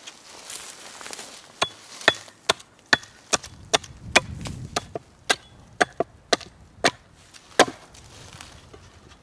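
Estwing axe chopping into the end of a locust log to sharpen a point on a fence post: about a dozen sharp chops, roughly two a second, stopping shortly before the end.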